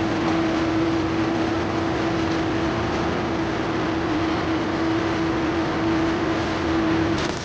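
CO2 MIG welding arc running steadily while laying a cover pass: a continuous hiss with a steady tone underneath, easing off just before the end.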